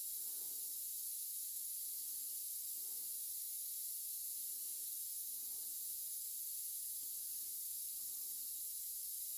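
Steady faint hiss of the recording's background noise, strongest in the high range, with faint soft sounds about once a second.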